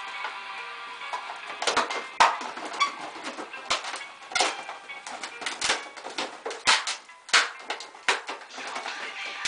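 Latex twisting balloons squeaking and rubbing against each other as they are twisted and bent into shape: a string of short, sharp squeaks.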